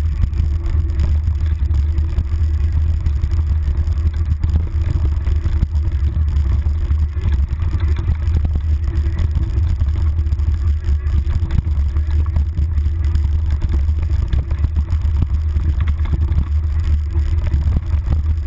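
Steady heavy rumble of wind and vibration picked up by a handlebar-mounted GoPro Hero as a mountain bike descends a rough dirt trail, with the bike rattling over roots and rocks.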